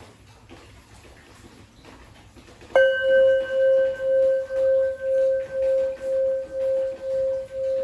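Antique Japanese kesu temple bell, a standing bowl bell, struck once a little under three seconds in, then ringing on in a long, slowly fading tone that pulses about twice a second.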